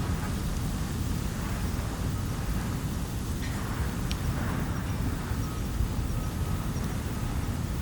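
Campfire burning, with a few sharp crackles from the wood over a steady low background rumble.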